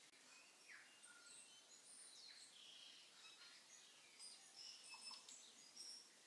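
Near silence: room tone with faint, scattered short high chirps and squeaks.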